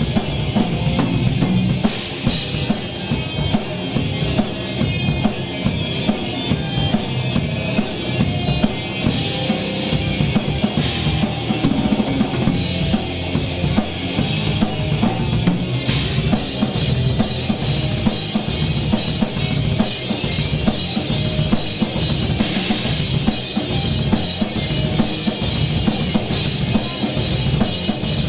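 Live rock band playing through a PA: drum kit hit hard and fast, with bass drum, snare and cymbals, under electric guitars and bass.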